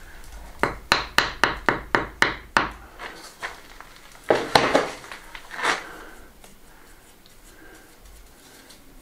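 A rubble stone being tapped into its mortar bed with a trowel: about nine quick, sharp taps, roughly four a second. Then a couple of louder scraping knocks, about four and a half and six seconds in.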